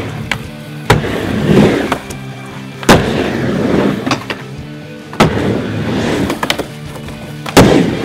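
Music with held tones plays throughout, with four loud sharp knocks about two seconds apart. The knocks are a skateboard's wheels and trucks clacking against the miniramp and its metal coping as it rolls back and forth.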